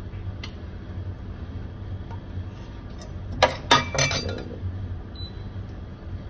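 A few sharp metallic clinks, about three and a half seconds in, from a metal spoon striking a steel plate and the paniyaram pan as cooked kuzhi paniyaram are lifted out. A steady low hum runs underneath.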